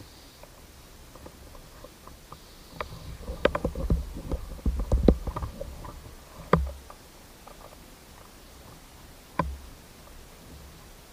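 Irregular knocks, clicks and low thumps on the microphone, busiest in the middle, with a sharp knock about two-thirds of the way through and a single knock near the end.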